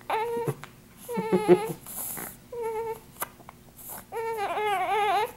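Newborn baby crying in four short, wavering cries with a couple of brief sharp clicks between them, the longest cry near the end; the baby has the hiccups.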